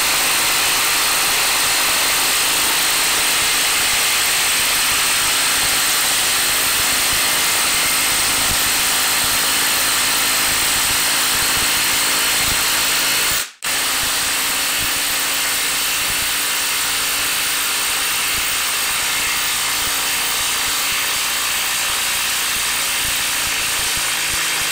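Ryobi 18V cordless impact driver hammering continuously as it drives a long lag screw through an impact-rated socket into wet log wood, working hard under heavy load. It stops for a moment about halfway through, then carries on.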